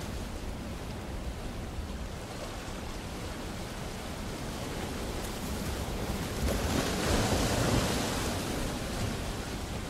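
Ocean surf: a steady wash of waves, with one wave swelling louder about seven seconds in and then ebbing.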